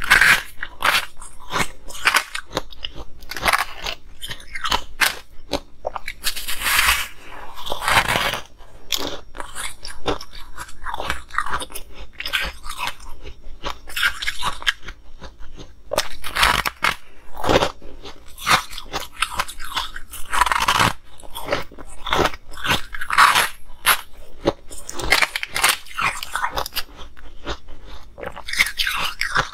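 Ice being bitten and chewed close to a clip-on microphone: irregular crunching and cracking throughout, with louder bites every few seconds.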